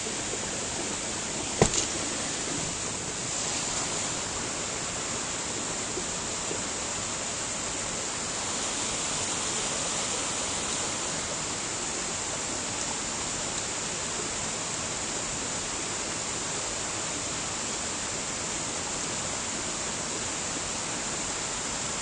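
Rushing water of a small waterfall and rocky stream, a steady hiss. A single sharp knock comes about one and a half seconds in.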